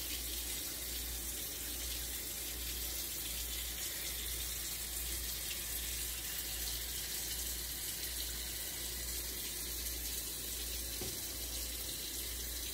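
A steady, even hiss with a low hum underneath, unchanged throughout.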